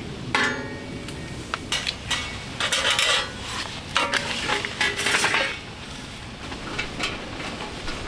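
A series of metallic clanks and clinks. The first and loudest comes about a third of a second in and rings briefly; more knocks follow over the next five seconds, then it goes quieter.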